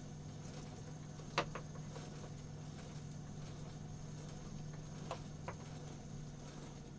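Car alternator used as the motor of a homemade pottery wheel, running at speed with a steady hum. One sharp knock comes about a second and a half in, and two fainter ones follow near the end.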